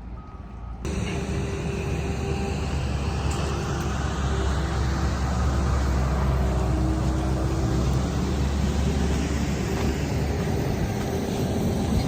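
A large engine running steadily with a low rumble, cutting in abruptly about a second in.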